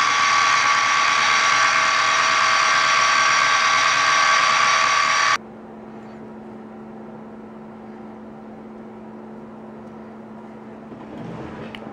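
Milling machine running loud with a steady whine of many tones as a small fly cutter machines a metal block. It cuts off abruptly about five seconds in, leaving a quieter low steady hum, with a few handling clatters near the end.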